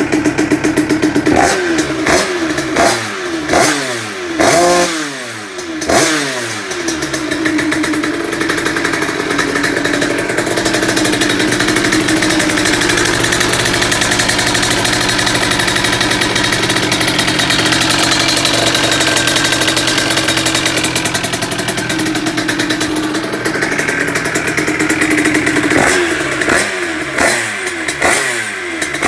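Tuned Yamaha DT 75 two-stroke engine, with an aftermarket 70RL exhaust, revved in a series of quick blips. It is then held at high, fairly steady revs for about twenty seconds and blipped again several times near the end.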